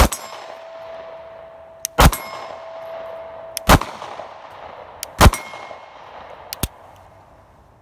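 Four 9mm shots from a Sig P365 compact pistol, about one and a half seconds apart, with a metallic ringing after the first ones and a few light clicks near the end. The string ends without the slide locking back on the empty magazine, a failure the shooters put down to a thumb riding the slide release.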